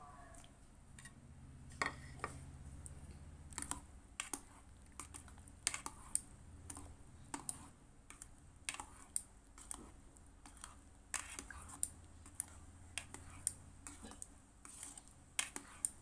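Irregular sharp clicks and taps of a wire-mesh strainer knocking against the pot while scooping food out of hot water, over a low hum.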